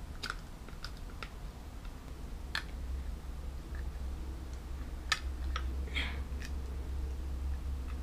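Hands working a GoPro in its clear plastic housing and a small mount piece: scattered light plastic clicks and taps, a few in quick clusters, over a steady low hum.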